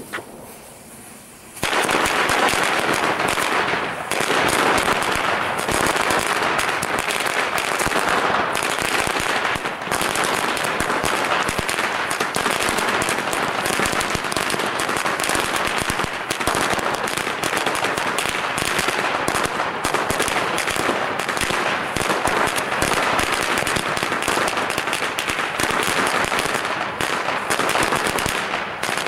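A Lesli XXL Celebration Cracker firecracker chain going off: after a short quiet moment, a dense, rapid string of loud bangs starts about two seconds in and runs on without a break.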